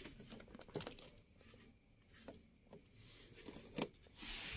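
Central door locking of a 1993 Toyota Crown being worked from the door-panel switch: a few faint clicks and clunks of the switch and lock actuators, spread over several seconds, with a short rustle near the end.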